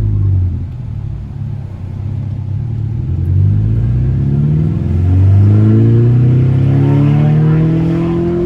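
Volkswagen MK6 GTI's tuned turbocharged 2.0-litre four-cylinder engine pulling under acceleration. The revs fall at first, then climb, drop at a gear change about halfway, and climb again.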